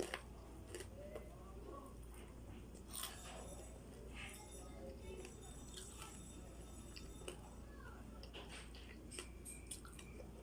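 Faint chewing of crunchy turon, with scattered soft clicks over a low, steady background.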